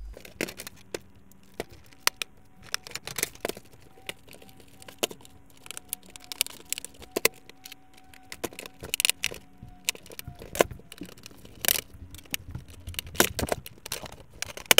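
Plastic casing and covers of an HP inkjet printer clicking, knocking and rattling as it is handled and turned, with irregular sharp clicks throughout, while the clips holding the case together are sought out.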